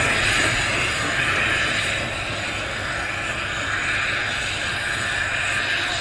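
1919 Krauss 0-8-0 tank steam locomotive moving away with a steady rush of steam exhaust and hiss, getting a little quieter over the first couple of seconds and then holding level.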